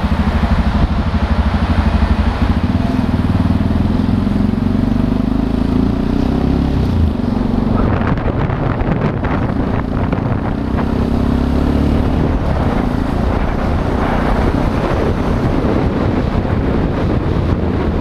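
Motorcycle engine running under way, its pitch rising and falling with the throttle in the first half, with wind noise on the microphone growing stronger from about halfway through.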